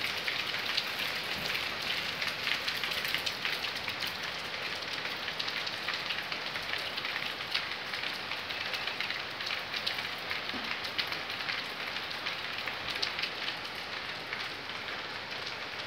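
Heavy rain falling steadily: a dense, even hiss with many small drop ticks close by.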